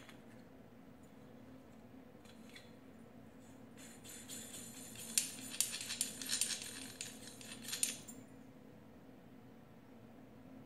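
Light metallic clicking and rattling for about four seconds, starting some four seconds in, as H4 LED headlight bulbs and their aluminium heat sinks are handled. Otherwise only a faint steady hum.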